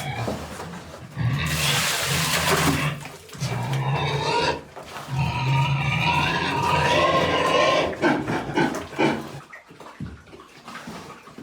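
Animal calls: a run of long, low-pitched calls one after another, with a harsher, noisier call about a second and a half in, dying away near the end.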